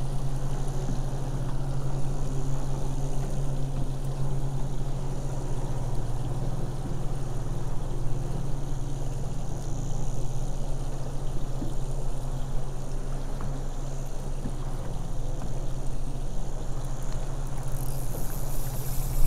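Boat's Suzuki DF140A four-stroke outboard motor idling with a steady low hum, with water lapping against the hull.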